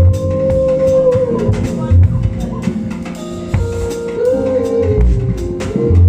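Live band playing: a drum kit with kick drum hits about once a second, under a long held melody line that bends between notes over sustained chords.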